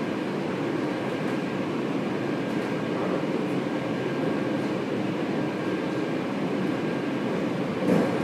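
Taipei Metro train heard from inside the car while running between stations: a steady rumble of wheels on rail with a faint steady whine. A brief louder thump comes near the end.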